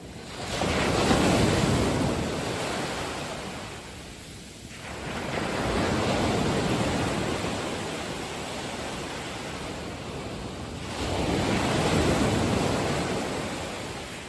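Sea waves washing in, three surges of rushing water that each swell up and die away over a few seconds.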